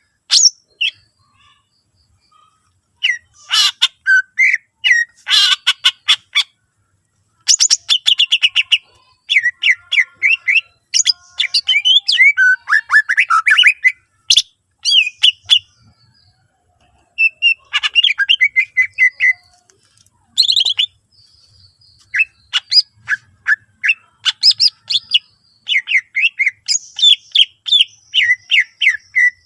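Green leafbird (cucak ijo) singing in long runs of rapid chattering notes and short slurred whistles, broken by pauses of a second or two. The song carries mimicked calls of other birds.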